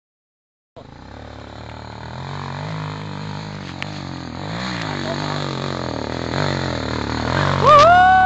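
Dirt bike engine running and revving on a steep loose-dirt hill climb, its pitch rising and falling; it cuts in about a second in. Near the end a loud high-pitched tone rises, holds for about a second and drops away.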